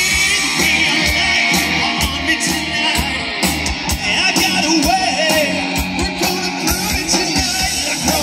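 Live 80s-style rock cover band playing through an outdoor PA: electric guitars and a steady drum beat, with the lead singer's voice on a handheld microphone.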